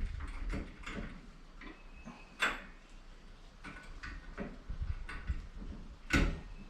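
Clicks and knocks of metal parts being handled while a winch-mount boat step is fitted to the trailer, with two louder clanks, one about two and a half seconds in and one near the end.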